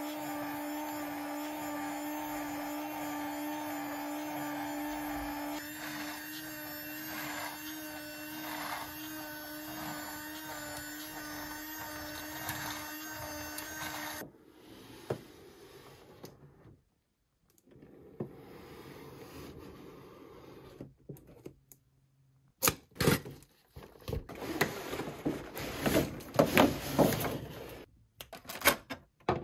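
Small electric motor of a Buzz Lightyear remote-control toy figure whirring steadily with a hum, stopping suddenly about halfway. After a quiet stretch, the figurine set's thin plastic trays crackle and click as they are handled, near the end.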